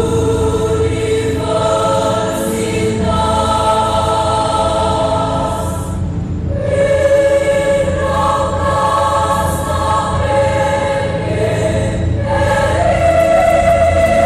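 Women's choir singing an Indonesian university march in long held notes. There is a short break near six seconds, and near the end the voices step up to a higher, louder note.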